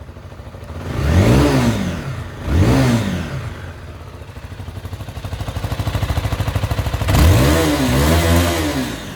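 Zontes 310V single-cylinder motorcycle engine blipped twice, about a second and a half apart, each time rising and falling back. It then idles with an even pulsing beat before being revved again near the end, rising, dipping briefly and rising once more before dropping back.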